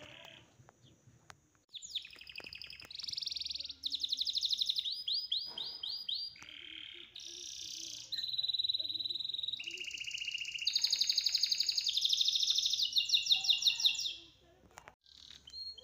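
A songbird singing a long, varied song of rapid trills and clear whistled phrases. The song starts about two seconds in, grows loudest in the second half and stops shortly before the end.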